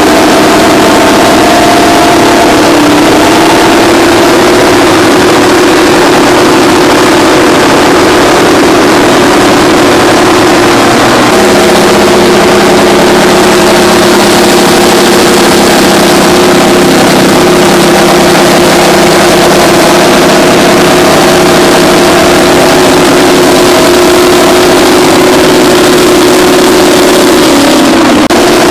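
Terex 82-80 bulldozer's twin Detroit Diesel 6-71N two-stroke engines running hard and steadily while pushing a scraper. About eleven seconds in, a second, lower engine note joins, and the pitch dips briefly near the start and again near the end.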